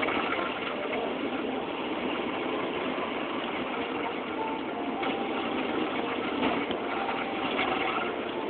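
An engine running steadily with an even drone that does not change.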